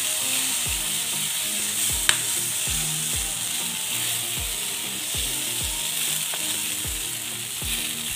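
Roti jala batter sizzling in a hot non-stick pan as it is drizzled from a small plastic bottle, a steady hiss. Deep bass beats from background music repeat underneath, and a sharp click sounds about two seconds in.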